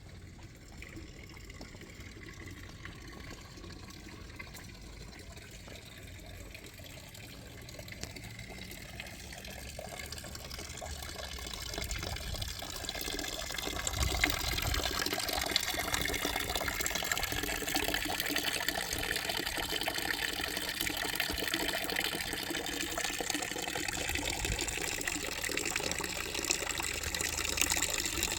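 Running, splashing water, swelling over a few seconds from about ten seconds in, then steady and loud until it stops abruptly.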